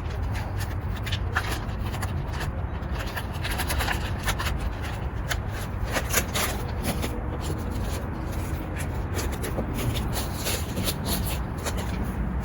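Hand work on parts and tools: scattered clicks, taps and scrapes over a steady low hum.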